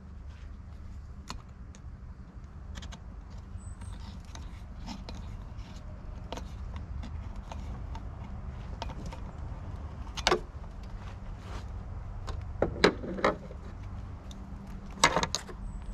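Scattered clicks and light taps of a screwdriver and plastic intake parts being fitted in a car's engine bay, with a few louder knocks about ten, thirteen and fifteen seconds in, over a steady low hum.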